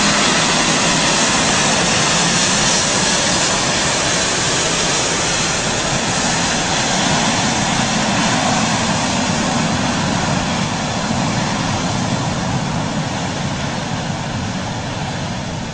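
Airbus A380's four jet engines at takeoff thrust during the takeoff roll, liftoff and climb-out: a loud, steady jet noise with strong hiss that slowly fades and loses its high end toward the end.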